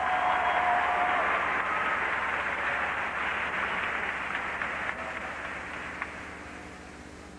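Crowd applauding and cheering, fading away over several seconds.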